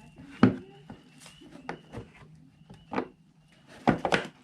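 Hard plastic clicks and knocks as an ATV tail light housing is handled and pushed into place. A sharp knock comes about half a second in, a few lighter clicks follow, and there is a quick cluster of knocks near the end.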